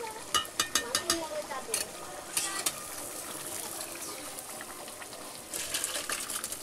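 Metal ladle clinking and scraping against a metal cooking pot as mutton curry is stirred, in clusters of sharp clicks, with a steady hiss of the curry sizzling and bubbling between them.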